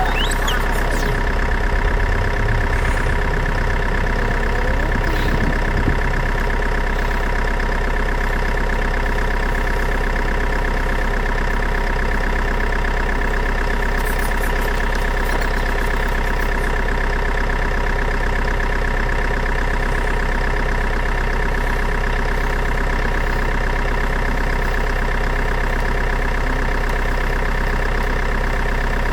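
Steady engine idling sound, unchanging at a constant pitch and level, with a few brief rising whines in the first few seconds.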